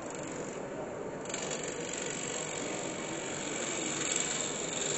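A gouge cutting a spinning olive-wood piece on a wood lathe: a steady scraping cut that grows brighter and a little louder about a second in.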